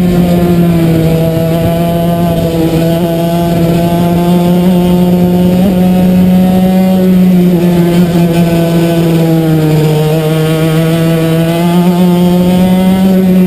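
Racing kart engine heard on board, running at high revs with a steady, buzzing pitch that sags slightly twice and recovers, over wind and track noise.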